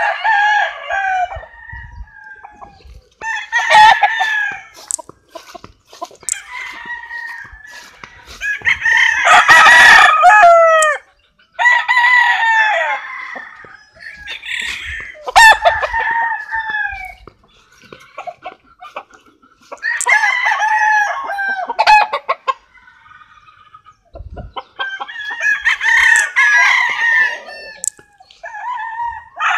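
Roosters crowing one after another, about seven crows, each with a falling tail. The loudest and longest crow comes about a third of the way through.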